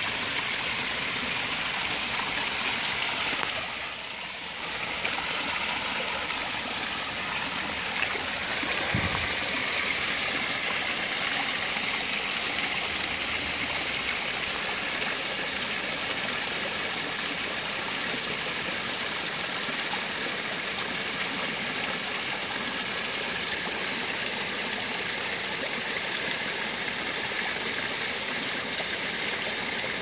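Small mountain stream running over rocks and splashing down little cascades into a pool: a steady rush of water.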